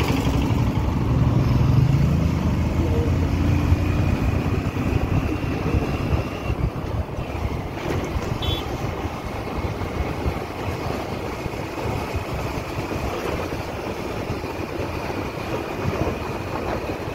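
A moving vehicle's engine and wind on the microphone. The engine's pitch rises over the first two seconds, then the sound settles into steady wind buffeting and road noise as the ride goes on.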